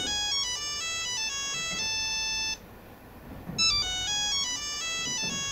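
Mobile phone ringtone playing: a short electronic melody of stepping notes. It breaks off about two and a half seconds in and starts over about a second later.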